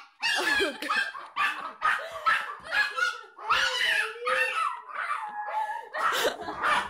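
Small terrier whining and yelping in a rapid string of short, high cries, about two a second: an excited greeting.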